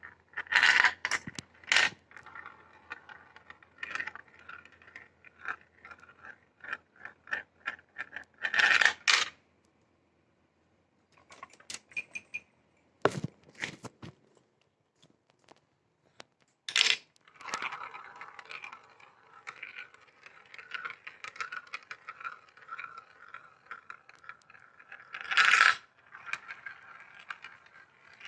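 Marbles rolling and rattling along plastic marble-run track, with rapid clicks and several loud clatters as they drop through pieces, and a brief lull partway through.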